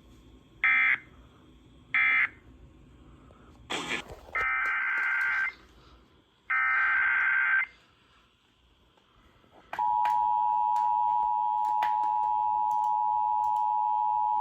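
Emergency Alert System tones over a radio. Two short squawking data bursts close the previous warning, then after a click come two longer squawking data bursts of a new alert header. About ten seconds in, the steady two-tone EAS attention signal starts and holds.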